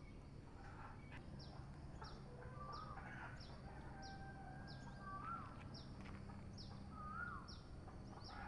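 Birds calling: one repeats a short, high falling note about every three-quarters of a second, while another gives a lower rising-and-falling call three times.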